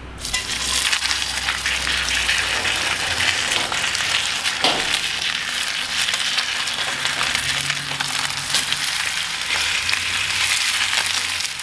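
Two dry-brined New York strip steaks sizzling steadily as they sear in avocado oil in a very hot cast iron pan. The loud sizzle starts suddenly right at the start.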